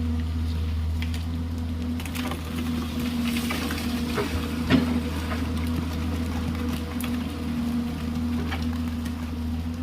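Excavator's diesel engine running steadily, with scattered knocks and clanks of the bucket working stones and gravel. The sharpest knock comes about halfway through.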